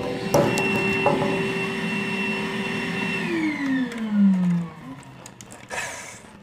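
Vacuum cleaner motor running steadily, then switched off about three seconds in, its pitch gliding down as it spins to a stop. A knock just after the start and a brief clatter near the end.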